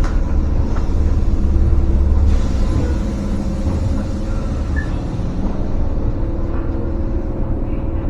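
Commuter train running along the track: a steady low rumble with a held hum, a little louder in the first two seconds.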